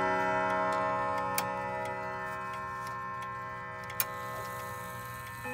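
Tubular chime rods of a Howard Miller Lewis triple-chime wall clock ringing on and slowly fading after hammer strikes, over the faint steady ticking of the clock movement. A sharp click sounds about four seconds in, and a new chime note is struck right at the end.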